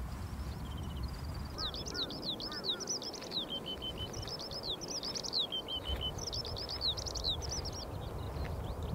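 Eurasian skylark singing: a long, rapid, unbroken stream of high warbling and trilling notes, starting about a second in and stopping near the end, over a low background rumble.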